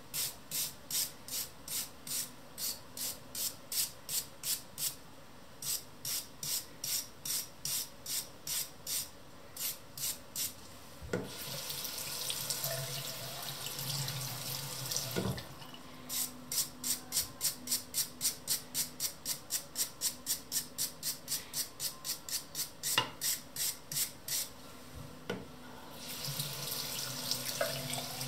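Brass wire brush scrubbing rust off a steel plane iron in quick, even strokes, about three a second, after a vinegar soak. Twice the strokes give way to a few seconds of tap water running into a ceramic sink, once in the middle and again near the end.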